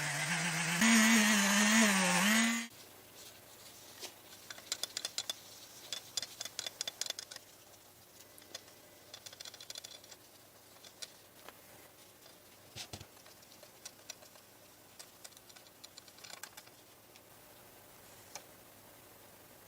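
A motor-driven tool runs loudly with a wavering pitch and cuts off abruptly about two and a half seconds in, followed by scattered light clicks and taps of hand work.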